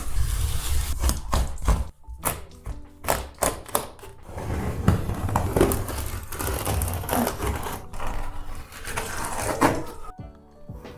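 Hand tools knocking, tapping and scraping as wooden quarter-round trim is cut and pried off where the wall meets the ceiling: a run of irregular sharp knocks over rough scraping. Background music comes in near the end.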